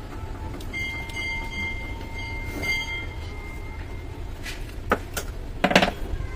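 Steady low background rumble with a faint, steady whistle-like tone held for about three seconds. Near the end come a couple of clicks and a short clatter as the circuit board is handled.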